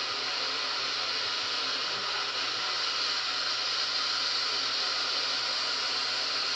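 Steady rush of a waterfall pouring down a mossy cliff into white water, heard as an even hiss-like roar played back through a television's speakers.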